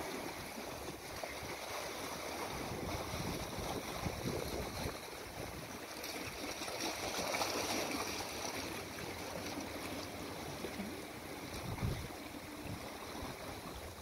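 Small ocean waves washing and splashing around shoreline rocks as a steady rush of surf, with a few low wind buffets on the microphone near the end.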